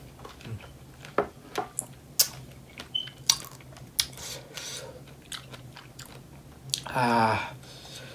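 Close-up chewing and biting of fresh strawberries, with wet mouth clicks and small crunches. About seven seconds in comes a short voiced sound from the eater, falling in pitch.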